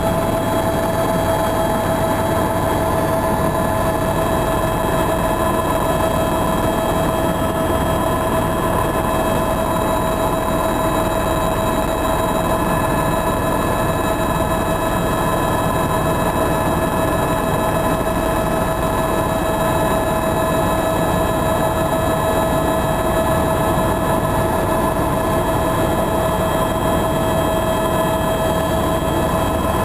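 Tour helicopter in steady flight, heard inside the cabin: a constant engine and rotor drone with a steady whine over a low rumble.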